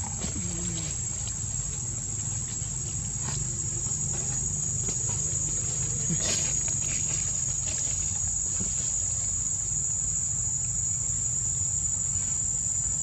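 Insects droning steadily at one high pitch.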